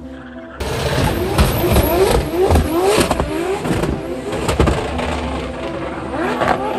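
Drift car's engine revving hard, climbing in pitch again and again with sharp spikes, as the car slides sideways round the course in tyre smoke. The loud engine sound comes in sharply about half a second in.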